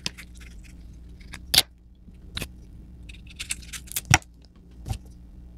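A knife scraping and cutting through star apple skin, with about five sharp clicks and knocks as the knife and the cut fruit halves touch down on a metal tray.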